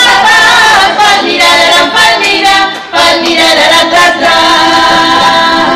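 A group of women singing a folk song together, amplified through microphones and speakers, with instruments beneath; the singing breaks off briefly about three seconds in.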